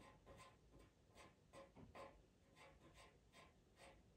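Faint scratching of a pastel pencil on Pastelmat paper: a quick run of short, light strokes, about four a second.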